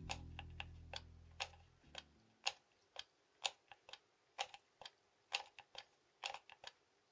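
The bench grinder's rocker power switch is clicked on and off about twenty times in quick, irregular succession, and the motor stays silent. A low hum fades out within the first two seconds.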